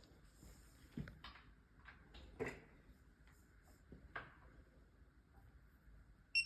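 A few scattered knocks and clunks of parts and tools being handled during gearbox assembly, with a short high beep right at the end.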